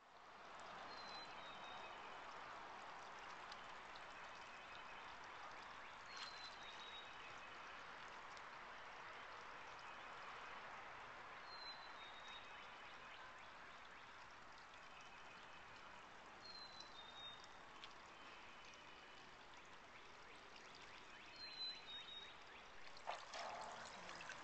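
Faint, steady trickle of water from a small garden pond's waterfall. A short high chirp repeats about every five seconds.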